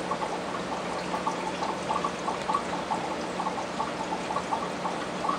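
Aquarium water splashing and bubbling steadily, many small irregular blips, over a steady low hum.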